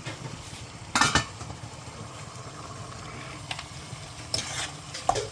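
Metal dishes and utensils clattering, a sharp knock about a second in and a few more near the end, over a steady low hum.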